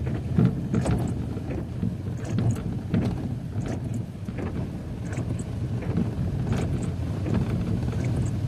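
Car driving on a rough, wet dirt road heard from inside the cabin: a steady low road and engine rumble with scattered sharp ticks, from rain and grit hitting the car.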